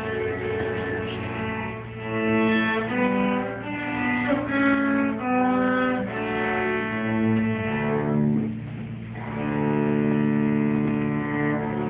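Two cellos playing a duet: held bowed notes that change every half second or so, a low line sounding under a higher one. The music drops quieter for a moment about eight seconds in.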